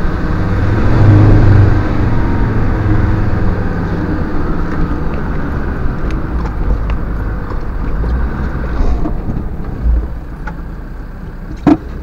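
Land Rover Defender diesel engine heard from inside the cab as it drives slowly over rough gravel, rising in revs about a second in and then running steadily. A thump shortly before the end and a sharp click near the end.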